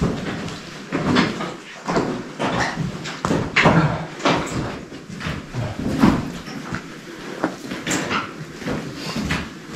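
Footsteps on the stony, gritty floor of a mine tunnel, an irregular step or scuff about every half second to a second.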